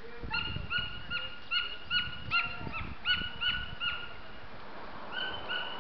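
An animal giving a quick run of short, high calls, about four a second, which break off about four seconds in, with two more near the end.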